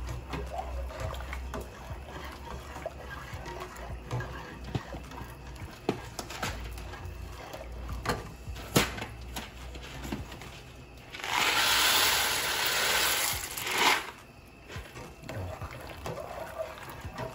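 Elbow macaroni being stirred with a spoon in a pot of boiling water, the spoon knocking now and then against the pot with sharp clicks. About eleven seconds in, a loud rushing, water-like hiss lasts about three seconds.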